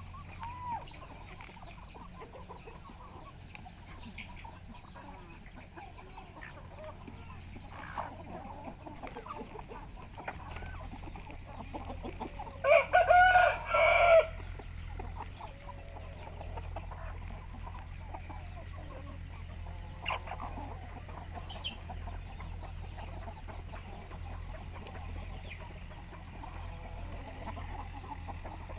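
A flock of country chickens (nattu kozhi) clucking and calling softly while foraging. About halfway through, a rooster crows once loudly, for about a second and a half.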